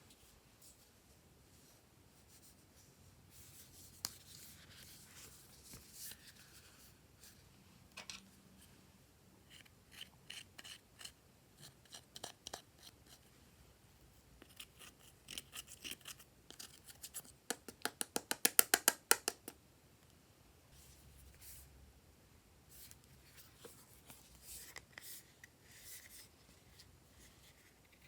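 Glossy slime being worked by hand, giving scattered sticky clicks and small pops. About two-thirds of the way through comes a fast run of about a dozen sharp clicks.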